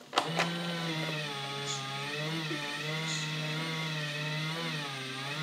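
Small electric motor of a battery-powered toy pottery wheel starting with a couple of clicks and then humming steadily as it spins the wet clay, its pitch dipping slightly now and then as the hands press on the clay.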